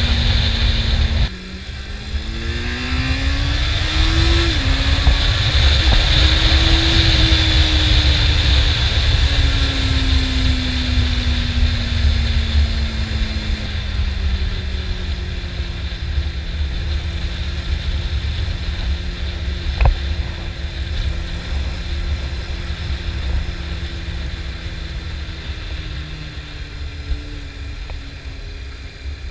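Honda CB400 Super Four's inline-four engine under way on the road, with wind rush over it. About a second in, the level and revs drop suddenly, then the engine pitch climbs for a few seconds, then settles and slowly eases down for the rest. A single short click is heard about twenty seconds in.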